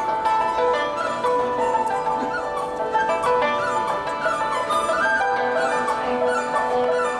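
Chinese bamboo flute (dizi) playing a solo melody with quick trills and ornamented turns over held accompaniment notes.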